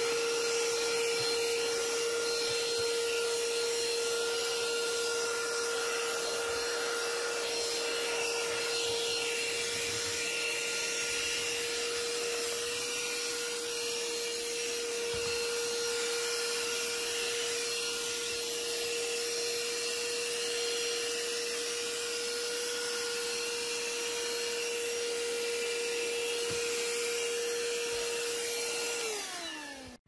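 Ryobi P713 18V cordless handheld vacuum running steadily: a constant motor whine over the rush of air as it sucks along a car's floor carpet. Near the end it is switched off, and the whine falls in pitch as the motor winds down.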